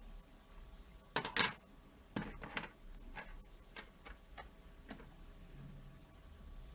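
A run of irregular small clicks and taps, the loudest a double click a little over a second in, from makeup brushes and plastic cases being handled while a brush is swapped.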